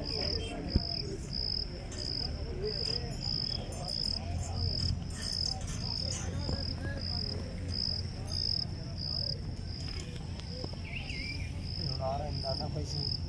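Cricket chirping in a steady, even rhythm, a little over two chirps a second, over background voices and a low rumble, with one sharp knock about a second in.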